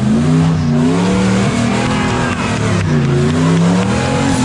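Four-wheel-drive's engine revving up and down again and again as it crawls over wet rocks.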